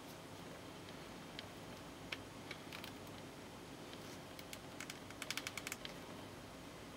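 Small plastic Nendoroid figure parts clicking and tapping as they are handled and fitted together: a few scattered clicks, then a quick run of about ten light clicks about five seconds in.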